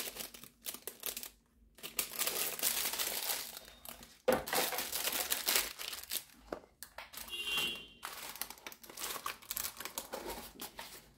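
Packaging crinkling and rustling in irregular spells as watches are handled and laid out on a table, with small knocks among it. A short high-pitched tone sounds about seven seconds in.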